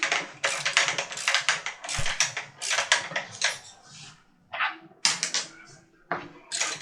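Ratchet handle clicking in quick strokes, about four a second with two brief pauses, as the steering-column bolt of a Kugoo M5 electric scooter is tightened hard.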